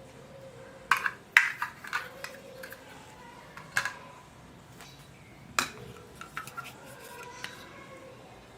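Small hard plastic toy kitchen pieces clicking and clattering as they are handled and set down. There is a quick run of sharp taps about a second in, the loudest of them, then single clicks and a few lighter taps spread through the rest.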